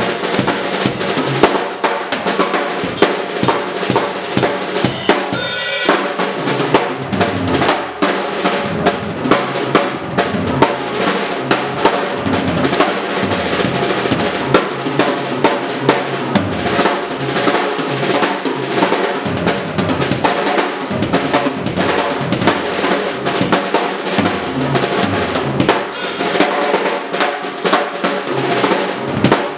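Acoustic drum kit played as a solo: fast rudiment-based rolls, with single strokes, paradiddles and five- and six-stroke rolls, moving around snare and toms, with bass drum underneath and a couple of cymbal hits.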